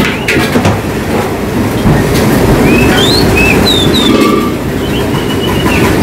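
Caged songbirds whistling: short clear notes that glide up and down, several times, over a loud steady low rushing rumble.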